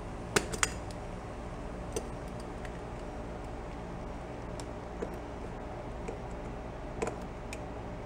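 A few sharp metal clicks and ticks as pliers work on a small-engine carburetor: two close together about half a second in, then single ones later. A steady low hum runs underneath.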